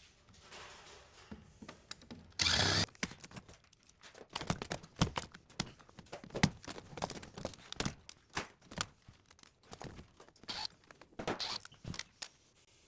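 Server main board being forced and broken out of its metal chassis: a loud half-second crack about two and a half seconds in, then a long run of irregular clicks and knocks of metal and plastic as it is pried loose.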